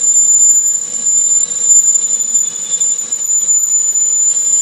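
Metal lathe drilling a 1-inch hole into stainless steel under flowing liquid coolant: a steady hiss of cutting and coolant with a constant high-pitched whine.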